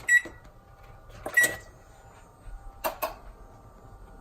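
An egg knocked against the rim of a mixing bowl to crack it: four sharp taps, the first two with a brief ring from the bowl and the last two in quick succession.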